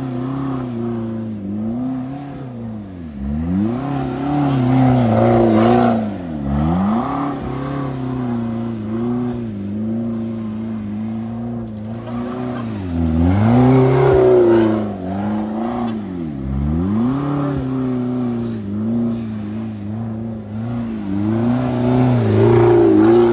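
McLaren 650S's twin-turbo V8 revving hard and repeatedly while the car spins donuts on grass, the engine note dropping sharply and climbing again every few seconds. It is loudest in three surges: about four seconds in, around the middle, and near the end.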